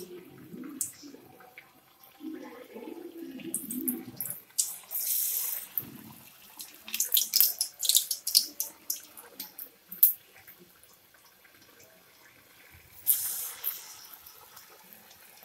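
Batter-coated chayote slices frying in hot oil: sizzling and crackling, with a surge of hiss about five seconds in and again about thirteen seconds in. In the first few seconds, wet squelching as a hand works the slices through the bajji batter.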